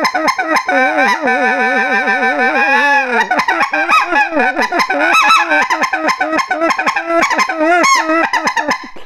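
Mania Zefir micro-diameter goose call blown in an imitation of greater white-fronted geese: a fast, continuous run of short, high yelping notes with a wavering, warbling stretch about a second in. The call has a slightly raspy tone.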